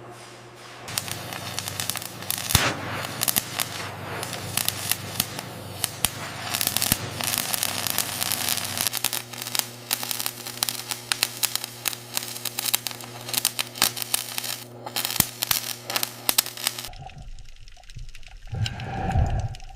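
Dense crackling and clicking over a steady low machine hum; the hum shifts in pitch about nine seconds in, and both cut off about seventeen seconds in.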